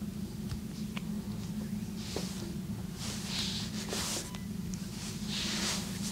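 Hands rubbing and sliding over the body during a massage: soft swishing strokes, several in a row from about two seconds in, over a steady low hum.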